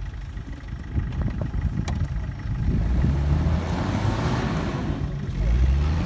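Off-road SUV engine revving under load as the vehicle tries to move in deep snow, its pitch rising about halfway through with a rushing noise around four seconds in and a louder surge near the end. One wheel is not turning: the drive is not reaching all four wheels.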